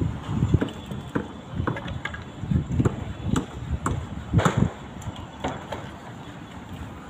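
A series of irregular knocks and thuds, about two a second, the loudest about four and a half seconds in, thinning out after about five seconds.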